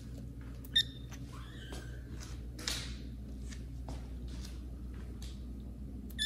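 Kitten mewing: a short, high cry about a second in, then a longer one that rises in pitch and holds, and another short cry at the end. A brief breathy noise comes near the middle.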